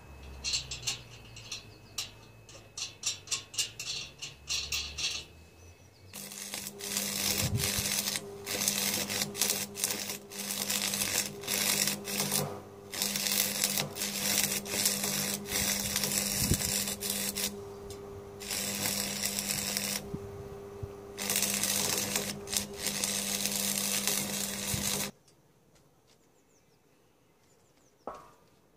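Electric arc welding on a steel tube frame: a loud, steady crackle and hiss with a hum underneath, in several runs broken by short pauses, starting about six seconds in and stopping a few seconds before the end. Before the welding comes a quick run of light ticks.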